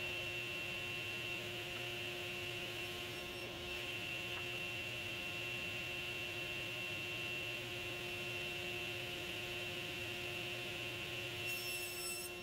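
Table saw running freely between cross cuts, a steady motor whine made of several fixed tones. A brief higher whine is added near the end, as a board is pushed toward the blade.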